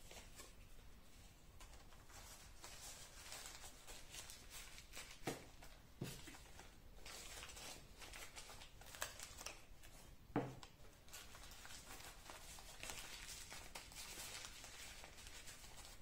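Faint rustling and crinkling of paper being folded and handled by hand, with three soft knocks on the table, at about five, six and ten seconds in.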